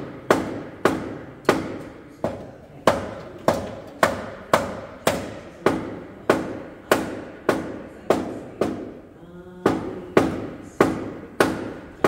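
Steady hammer blows, about one every 0.6 seconds, each ringing out briefly, with a short break about nine seconds in.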